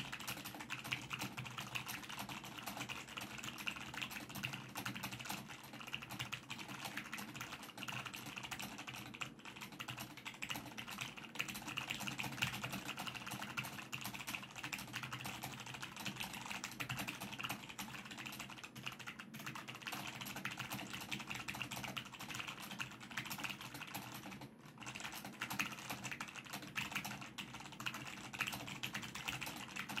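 Fast, continuous typing on a Logitech G513 mechanical keyboard with Romer-G Tactile switches: a dense clatter of keystrokes, broken by a few brief pauses.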